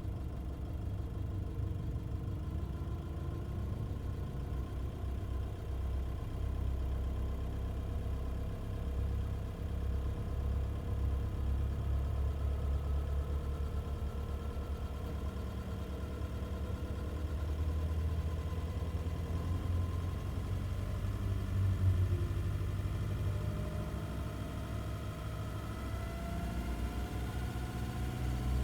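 Nissan Navara engine running at low revs, from idle upward, carrying the abnormal noise its owner hears between 750 and 2000 rpm. It runs steadily with a low rumble, the pitch rising slowly in the last several seconds as the revs creep up, with one brief louder moment about 22 seconds in.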